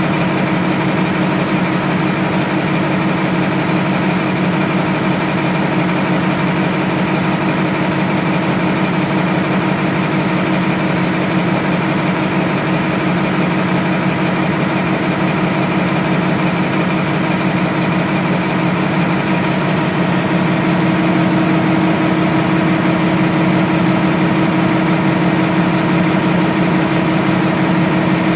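An engine running steadily at idle, an even hum with no revving, getting slightly louder about two-thirds of the way through.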